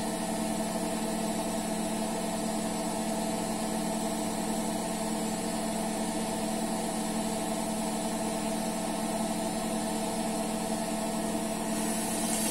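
A steady, even machine hum, like a small motor running, holding one pitch throughout. A hiss joins in near the end.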